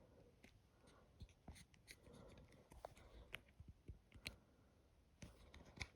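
Faint, scattered small clicks and rubbing of fingers handling a metal brooch and working its pull-out fitting.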